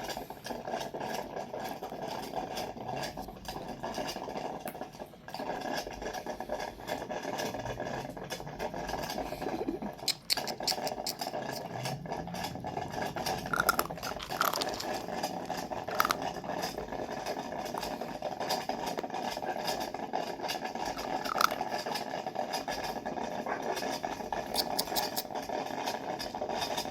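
Coffee maker running loudly: a steady mechanical hum with scattered clicks and a few short squeaks.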